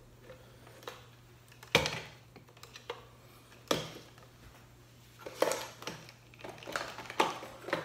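Hands working on a metal vintage camera body: four sharp knocks and clicks about two seconds apart, with light scraping and rustling between them.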